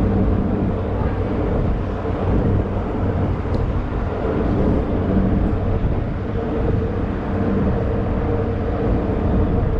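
Electric go-karts running at a governed, slow pace, giving a steady hum of several even tones over a low rumble of wind on the microphone.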